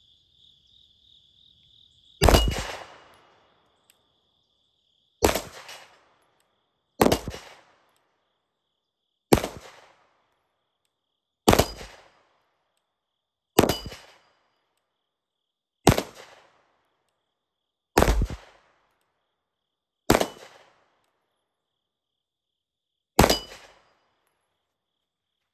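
Ten single pistol shots from a Gen 3 Glock 19 9mm, fired at an unhurried pace about two seconds apart with a longer gap before the last. Several shots are followed by a short ring from the steel plate targets being hit. Crickets chirp steadily underneath.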